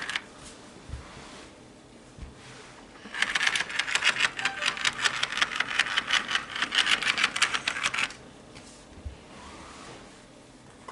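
HO scale model train rolling past, its wheels clicking rapidly over the track, about six clicks a second, for about five seconds from about three seconds in.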